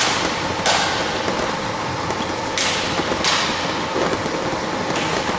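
Electronic fruit-sorting machine and its conveyors running steadily with peaches: a constant mechanical drone with thin steady tones, broken by three sharp knocks.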